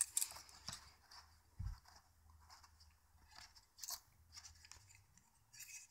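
Faint, scattered clicks and light metallic rattles of a butterfly knife being handled, with one short low thud less than two seconds in.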